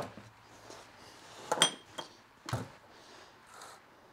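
Handling noises of a Homelite chainsaw being moved onto an absorbent mat on a workbench: a sharp knock, a short clink about a second and a half in, and a dull thump about a second later.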